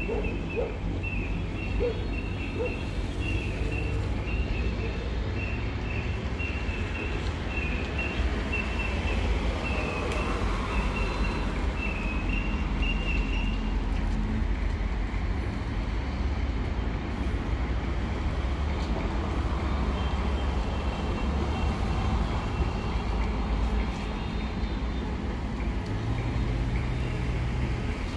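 Steady street-traffic rumble. A faint high chirp repeats about twice a second through the first half and then stops, and a vehicle engine hums briefly near the end.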